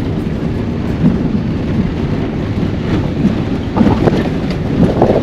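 Cabin noise of a van driving on a rough dirt road: a loud, steady rumble of engine and tyres, with a few louder bumps near the end.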